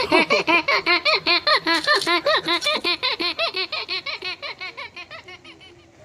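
A long run of high-pitched laughter: even 'ha' sounds, about seven a second, that fade away over several seconds.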